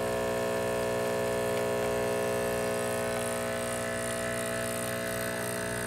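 Breville Barista espresso machine's vibratory pump running with a steady hum while a double shot extracts, working at full brewing pressure, right in the espresso range.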